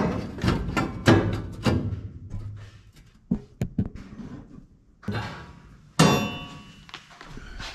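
A sheet-metal patch panel knocking and thunking against the car's floor and firewall as it is pushed in for a rough fit, several knocks in the first two seconds, a few light taps after. About six seconds in, a sharper metal clang that rings briefly.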